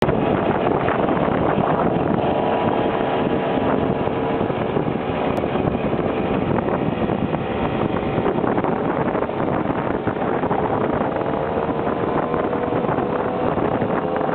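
Two-stroke Simson moped engines running at a steady cruise, their tone drifting slowly up and down, with wind noise on the microphone.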